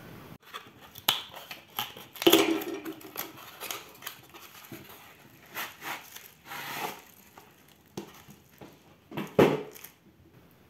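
Cardboard box being opened by hand and a spray can wrapped in plastic film pulled out of it: scattered knocks of cardboard and the can, with crinkling of the plastic wrap, loudest about two seconds in and again near the end.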